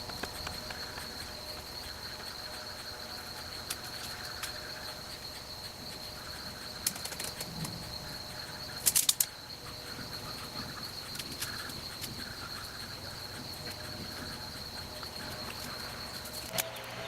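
Outdoor ambience: a steady, high-pitched insect drone, broken by a few sharp clicks about seven and nine seconds in.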